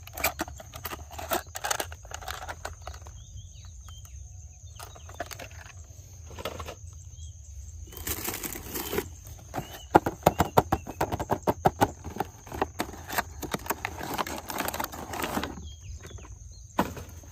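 Irregular clicks, taps and rustling of small objects being handled, busiest a little past halfway, over a steady low hum.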